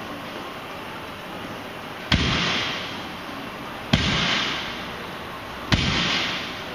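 A loaded barbell is set down hard on the gym floor three times, about every two seconds, at the bottom of each deadlift rep. Each sharp bang trails off over about a second.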